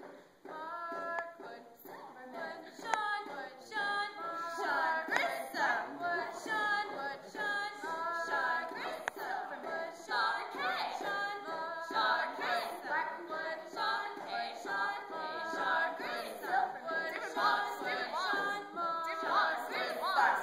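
A group of girls singing a cappella, a chant of short, clipped notes repeated in a steady rhythm.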